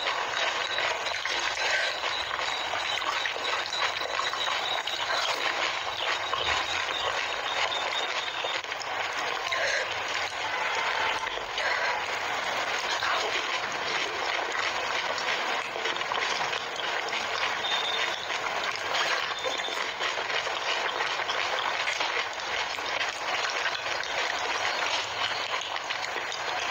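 Close-miked ASMR eating: crunching and chewing of crisp panipuri shells and raw green chillies, a dense run of crackles that goes on without a break.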